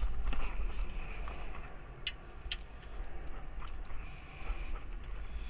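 A few isolated sharp clicks of hand tools and fasteners, heard over a steady low rumble, while a plate is being unbolted from a car.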